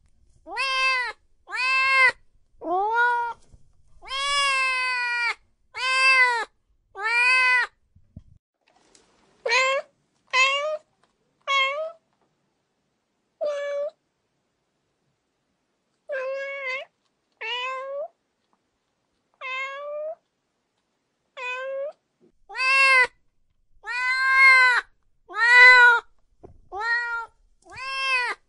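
Domestic cats meowing over and over: short calls that rise and fall in pitch, about one a second. Around the middle the calls come less often and are quieter, and they grow louder again near the end.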